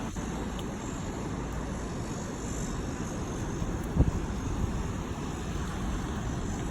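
Seaside wind buffeting the microphone in a steady low rumble, with surf behind it. A single thump about four seconds in.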